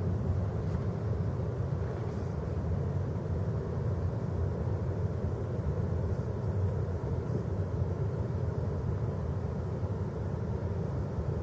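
Steady low rumbling outdoor background at a beach, with no distinct events.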